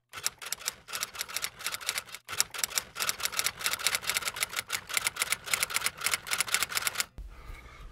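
Rapid typing clicks, several keystrokes a second with a couple of brief pauses, stopping about seven seconds in; a faint low hum follows.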